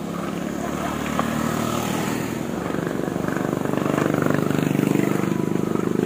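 An engine running with a rapid, even firing pulse, growing louder through the last few seconds.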